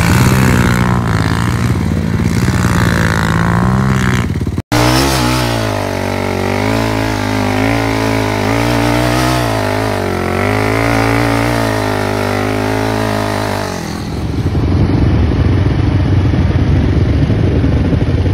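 Quad bike and dirt-bike engines revving hard in sand, the pitch rising and falling with the throttle. The sound cuts off abruptly about four and a half seconds in and changes to a rougher engine sound about fourteen seconds in.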